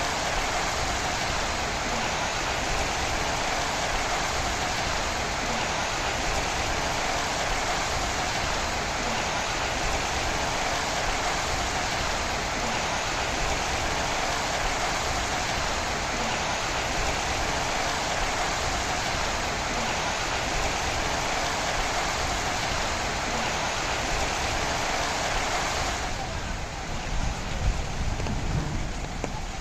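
Steady, heavy rain falling, an even hiss. About 26 seconds in, the rain sound thins and other, lower sounds start to come through.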